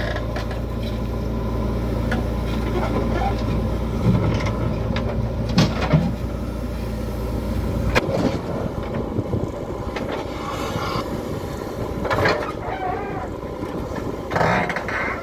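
Diesel engines of a JCB 3DX backhoe loader and a Mahindra tractor running steadily while the backhoe digs and dumps soil, with a few short knocks; the low engine rumble drops away about halfway through.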